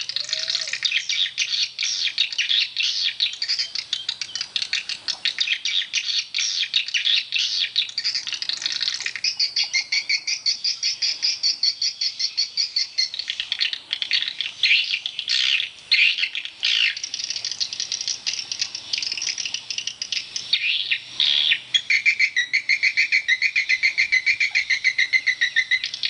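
Edible-nest swiftlets twittering in a dense, unbroken stream of fast chirps and trills, with a faint steady low hum underneath.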